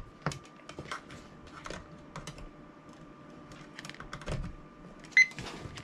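Light clicks and taps of hands handling a plastic LED wall clock and its USB cable. About five seconds in comes a short, high electronic beep from the clock as it powers up on being plugged in.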